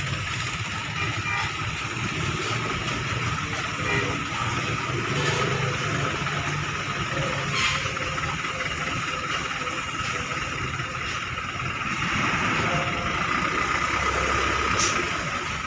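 Bus engine running slowly at low revs, growing louder about twelve seconds in, with a few short sharp clicks or hisses.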